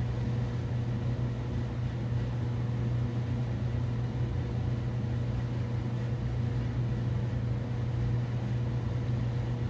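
Steady low hum with a faint high whine, from a running fan or appliance motor; no distinct events stand out.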